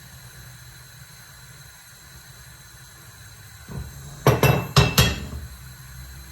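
A soft thud, then four sharp clinks and knocks of kitchenware between about four and five seconds in, with a brief ring after each.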